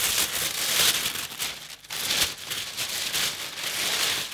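Tissue paper being unfolded and handled, crinkling and rustling, with a short lull a little under two seconds in.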